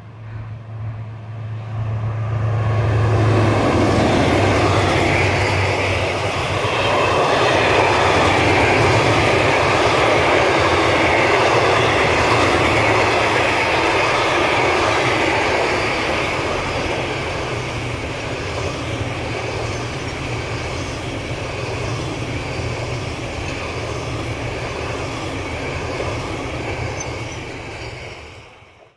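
A diesel locomotive approaches with a steady low engine drone, then passes, and a long freight train of container wagons rolls by with a loud, continuous rumble of wheels on rail. The rumble is loudest through the middle, eases to a steady lower level, and cuts off suddenly at the very end.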